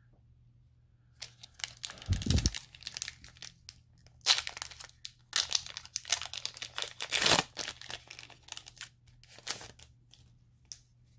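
Foil Pokémon booster pack wrapper being crinkled and torn open by hand, in irregular crackly bursts starting about a second in, with a soft thump or two.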